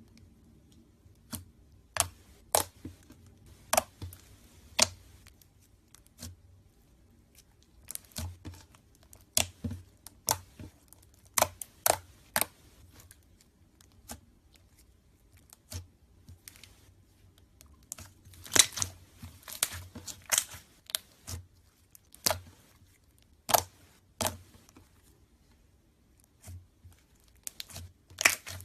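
Homemade slime being squeezed, poked and stretched by hand, giving irregular sharp pops and clicks, some single and some in quick clusters.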